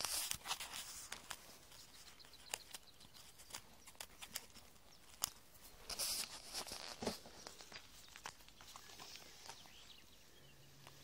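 Faint scattered rustles, crunches and clicks of someone moving over grass and gravel and handling things close to the microphone, with louder rustling bursts near the start and about six seconds in.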